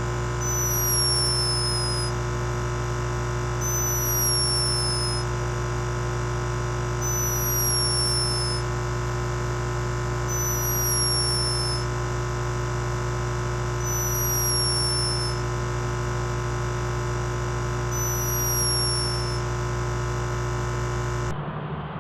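Loud, steady electronic drone of many held tones, with a short falling high chirp repeating about every three and a half seconds. It cuts off suddenly near the end.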